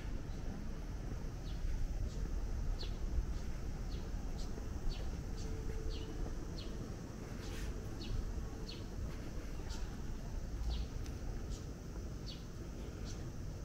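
Small birds chirping: short, sharp, slightly falling chirps, one or two a second, over a steady low rumble of background noise.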